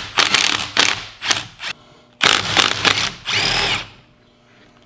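Milwaukee M12 Fuel cordless impact wrench run in several short rattling bursts as it breaks loose and backs out the 14 mm bolts on a power steering rack's pinion valve housing. A little past three seconds in it ends with a brief whir that rises and falls as the tool spins freely.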